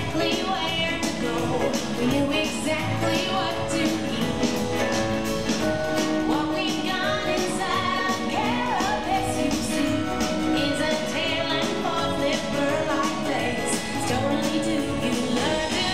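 Music: a pop-style song with singing over a steady beat.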